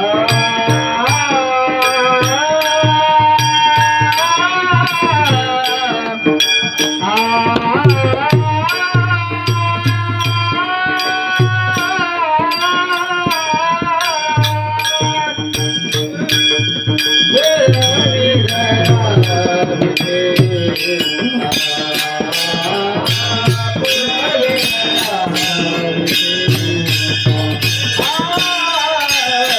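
Varkari kirtan music: a male voice singing a devotional chal melody with long, gliding, ornamented notes over a steady held drone. Small hand cymbals click on an even beat, with low drum strokes beneath.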